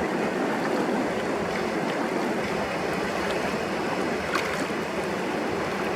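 Steady rush of flowing river water, an even hiss with a few faint ticks.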